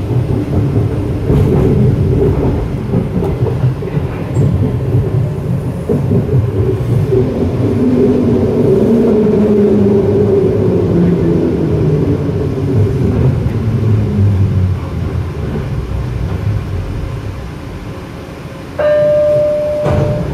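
Detroit People Mover train running on its elevated guideway, with a steady rumble and a whine that falls in pitch as the car slows. Near the end a steady electronic tone sounds for about a second and a half.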